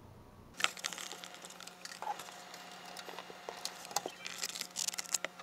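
Close-up handling noise of a webcam being gripped and adjusted on its monitor mount: irregular clicks, taps and plastic rubbing, over a faint steady hum.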